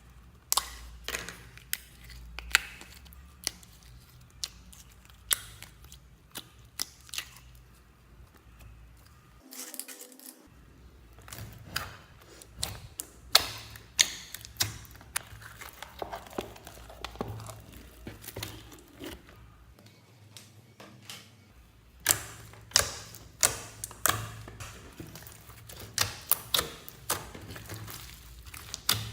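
Slime being squeezed, folded and mixed by hand, giving irregular sharp clicks and pops, with busy runs of them near the middle and again near the end.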